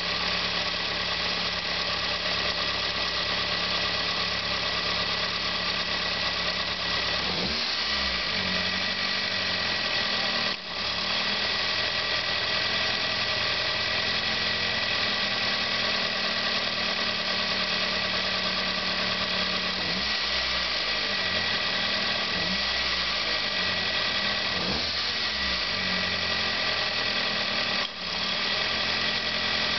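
Car engine idling with the belt-driven air-conditioning compressor cutting in and out. The engine note shifts several times as the compressor's load comes and goes.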